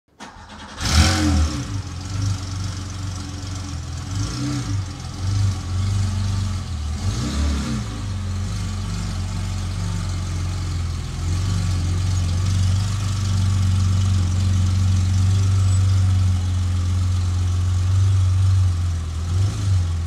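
Air-cooled flat-six of a vintage Porsche 911 starting about a second in, revved twice a few seconds apart, then settling into a steady idle.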